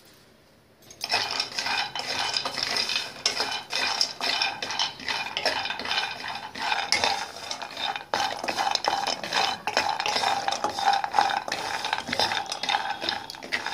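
Cashews and almonds being roasted in a metal kadai and stirred with a spatula: the nuts rattle and scrape against the pan in a dense run of clicks that starts about a second in.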